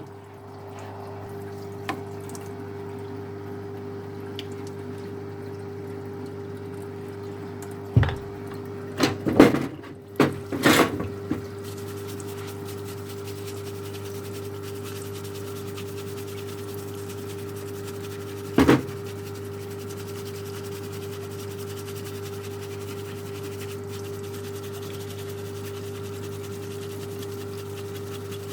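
Parts washer pump running with a steady hum and solvent flowing. A cluster of sharp knocks and clatters comes about a third of the way in, and one more knock about two-thirds of the way in.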